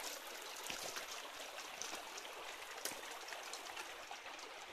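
A small forest stream trickling over stones, a steady rush of running water, with a few footsteps on the stony bank.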